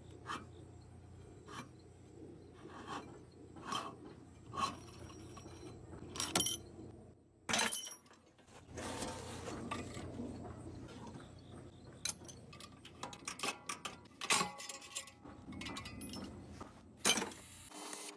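Irregular metallic clinks and knocks of hand tools and loose metal parts as a washing machine is taken apart, over a low steady hum that cuts off near the end.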